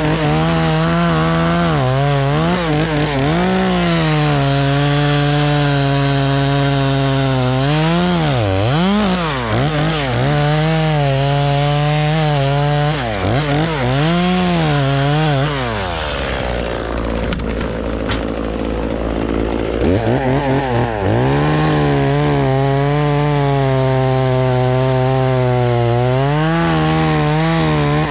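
Two-stroke chainsaw running at full throttle, its pitch sagging and recovering several times as it bogs under load while cutting wood.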